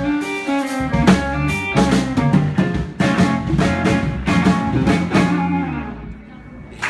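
A country band with guitar and drums playing the closing bars of a song, its final notes stopping about five and a half seconds in and dying away.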